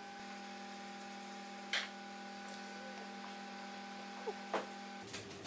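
A steady electrical hum, with a few sharp clicks of mahjong tiles being handled on the table: a loud one about two seconds in and two more near the end.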